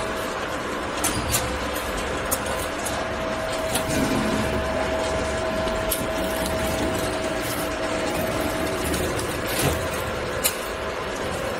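Potato chip production line machinery running: a steady hum of electric gear motors and conveyors with a constant whine, and scattered light clicks and knocks.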